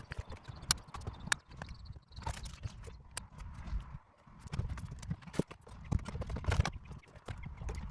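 Irregular sharp clicks and light knocks as the stereo, dash kit and trim pieces are fitted back into the car's dashboard.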